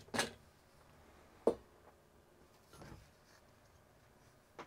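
Several short knocks and clicks of metal parts from a photomultiplier detector assembly being handled and set down on a workbench, the sharpest about a second and a half in.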